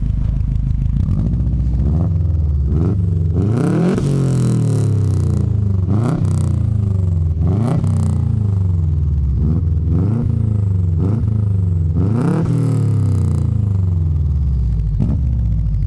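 First-generation Subaru Impreza's flat-four boxer engine heard at the tailpipe, blipped on the throttle about nine times over a running idle. Each blip is a quick rise and fall in pitch, coming every second or two.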